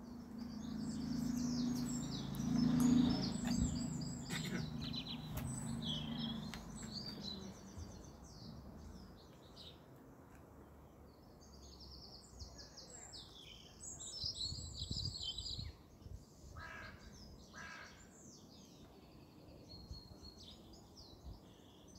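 Garden birds singing, with many short chirps and trills throughout. A low drone sounds under them for the first six or seven seconds and then fades.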